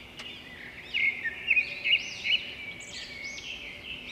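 Birds chirping and calling: a quick run of short, high chirps and squeaks, with several louder calls from about a second in.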